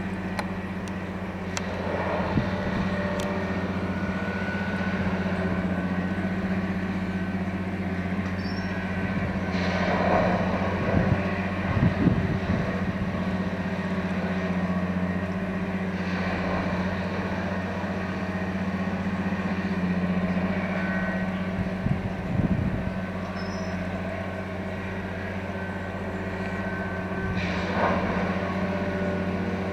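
Multiple tie tamper (track tamping machine) working on the rails: its diesel engine runs with a steady low hum, and louder rushing, clattering surges come every few seconds.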